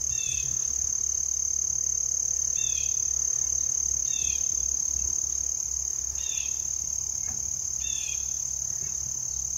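A steady, high, unbroken insect chorus of crickets or similar insects, with a bird repeating a short two-note chirp five times, roughly every couple of seconds.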